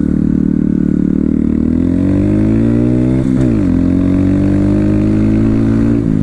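Motorcycle engine accelerating hard through the gears: the pitch climbs, drops sharply at an upshift about three seconds in, then climbs again more gently.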